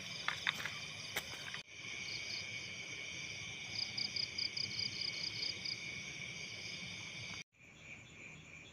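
Night chorus of crickets and other insects: steady high chirring, with a fast pulsed trill joining in about halfway through. A few sharp clicks come at the start, and the chorus cuts off and returns fainter near the end.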